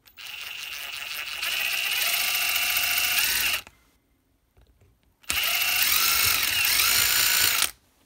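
Electric drill with a 1.5 mm bit running in two bursts with a steady whine, boring a hole in a car's outer door handle. The first run speeds up about a second and a half in; the second is shorter.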